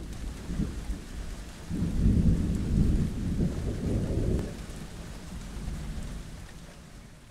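Steady rain with a long roll of thunder that swells about two seconds in and slowly dies away.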